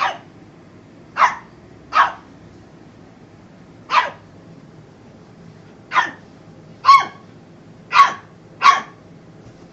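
A dog barking: eight short single barks at uneven intervals of about a second.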